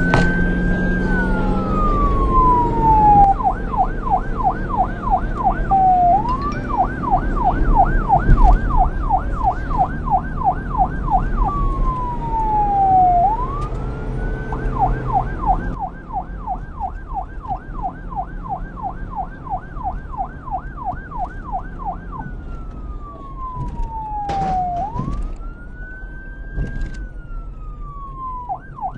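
Electronic police siren alternating between a slow wail that rises and falls and a fast yelp of about three or four pitch sweeps a second, switching back and forth several times. A lower rumble runs underneath and drops away a little past halfway.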